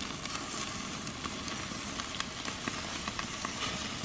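Hamburger patties and bacon sizzling over a charcoal grill, the bacon in a cast-iron skillet: a steady hiss with frequent sharp pops and crackles.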